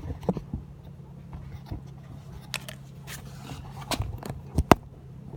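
Scattered clicks, knocks and scrapes of hands working on car parts under the hood, with one sharp click a little over four and a half seconds in, over a steady low hum.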